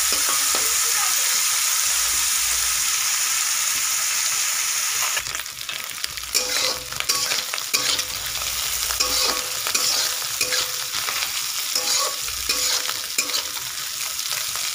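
Small prawns frying in hot oil in a metal kadai, with a steady sizzle that quietens about five seconds in. After that, a metal spatula scrapes and clicks repeatedly against the pan as the prawns are stirred.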